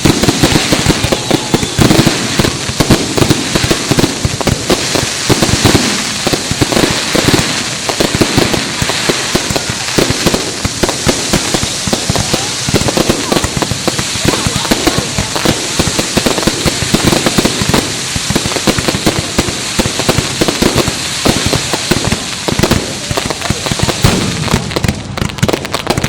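Fireworks display going off in a continuous dense barrage of bangs and crackles, many bursts a second with no pause, over the voices of a crowd.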